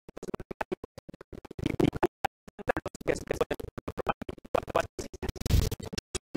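Background music breaking up into rapid dropouts, stuttering and cutting in and out many times a second like a glitching stream.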